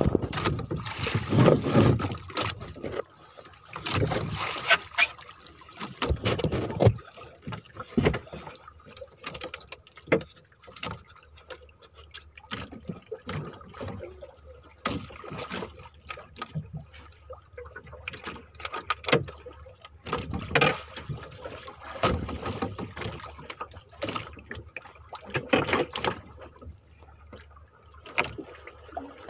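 Irregular knocks, clatter and rustling as a fisherman handles a handline spool and gear in a small wooden fishing boat, with occasional thumps against the hull.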